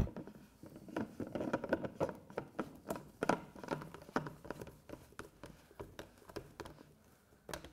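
Water filter casing being screwed back on by hand: a run of irregular clicks and rubbing scrapes as the casing turns on its thread, thinning out and stopping about seven seconds in, then one last click.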